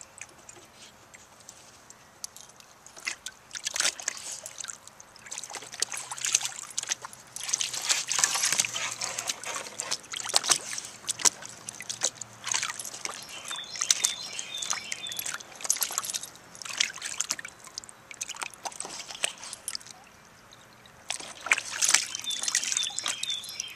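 Nova Scotia duck tolling retriever puppy pawing and splashing at the water in a shallow plastic kiddie pool: irregular bursts of sloshing and dripping, with a quieter stretch near the end before more splashing.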